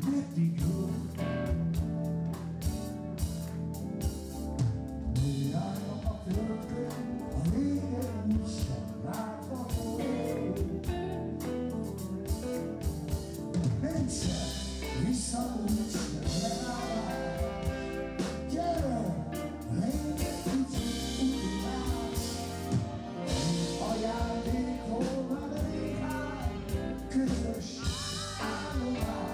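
Live band playing on stage, with a smoky-voiced male lead singer singing over saxophone, electric guitar, bass and drum kit, and backing singers.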